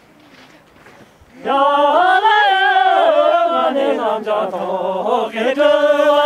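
Voices singing a traditional Ngari Tibetan circle-dance song together, coming in loudly about a second and a half in with long, wavering, held notes.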